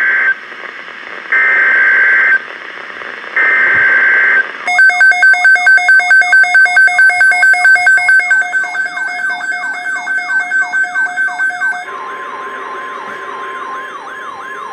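Emergency Alert System signals from a NOAA Weather Radio broadcast. First come three short, loud bursts of warbling SAME digital header data, about a second apart. Then a loud pulsing alarm with repeated falling sweeps, about four pulses a second, and from about twelve seconds in, the steady single-pitch weather radio warning tone with the falling sweeps still running over it.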